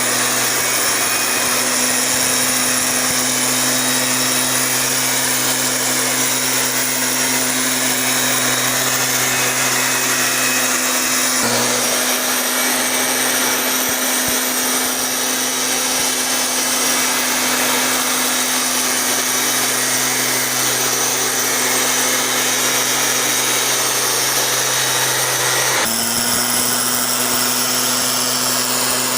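Maruyama motorised sprayer running steadily at high speed while spraying larvicide, a constant loud engine and blower noise with a steady hum. Its pitch and tone shift abruptly twice, about eleven seconds in and again near the end.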